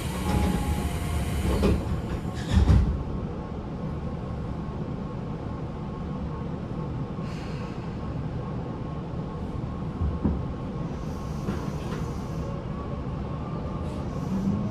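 Running noise heard inside a Tobu 9050 series electric motor car: a steady rumble of wheels on rail, with a few louder knocks in the first three seconds. The car's air conditioning runs under it.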